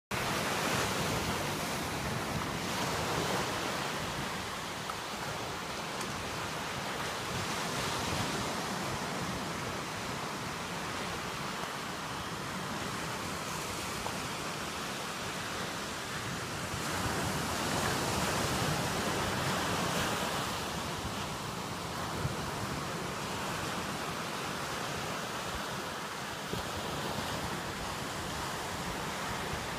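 Ocean surf at the shoreline: small waves breaking and washing up the sand, the rush swelling and easing every few seconds.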